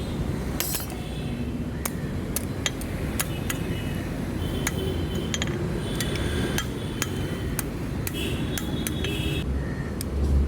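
Blacksmith's hammer striking metal in irregular blows, about two a second, several of them leaving a short metallic ring. A steady low rumble runs underneath.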